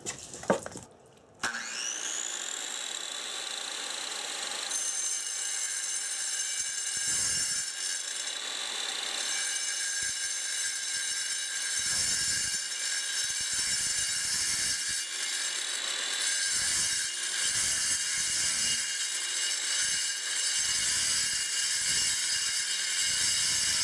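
Circular saw (Skilsaw) with a diamond blade starting about a second and a half in, its whine rising as the motor spins up, then cutting through a granite countertop slab with water fed to the blade: a steady, high grinding whine.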